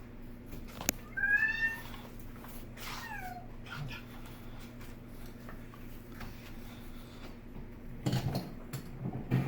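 A domestic cat meowing twice, the second meow falling in pitch, over a steady low hum. A sharp click comes just before the first meow, and a few low thumps come near the end.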